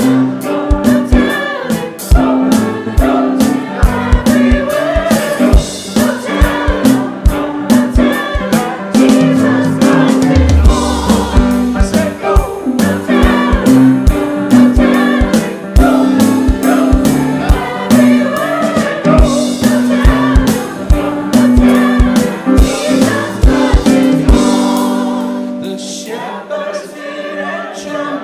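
Church choir singing an upbeat gospel-style song with a steady drum beat and bass accompaniment; about three seconds before the end the drums stop and the choir holds a final chord.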